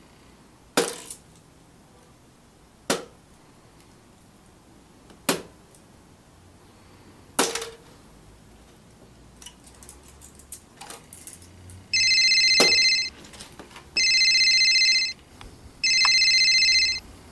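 Four sharp knocks, about two seconds apart, of darts striking a dartboard, then a mobile phone ringing: three loud electronic rings of about a second each, two seconds apart. The ringing is the loudest sound.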